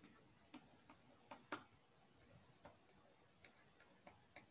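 Faint, irregular clicks of a stylus tapping on a tablet screen while a word is handwritten, about nine in all, the loudest about a second and a half in.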